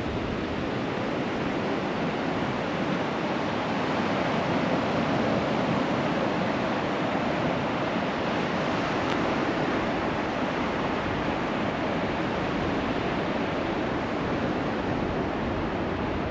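Steady rushing of Gulf surf breaking on the beach, mixed with wind on the microphone.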